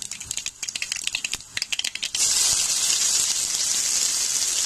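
Mustard and cumin seeds crackling and popping in hot oil in a kadhai. About two seconds in, chopped onion goes into the oil and a much louder steady sizzle takes over.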